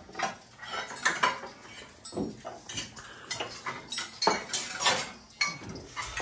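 Cutlery and serving utensils clinking against plates and dishes as food is served, a quick irregular run of clinks and scrapes.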